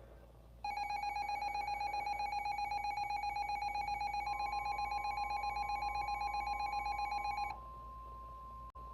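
EAS two-tone attention signal (853 and 960 Hz together) sounding for about seven seconds, with a warbling, ringing quality. A steady single-pitch alert tone, the NOAA Weather Radio 1050 Hz warning tone, joins about halfway and keeps sounding after the two-tone signal cuts off.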